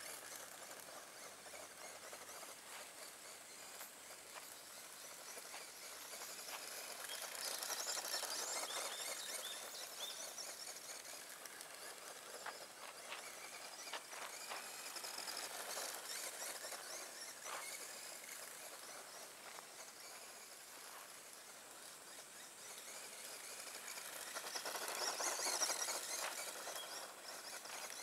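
Tamiya Grasshopper electric RC buggy driving over loose gravel, its tyres crackling and scattering grit as its motor runs. The sound swells twice as the buggy passes close.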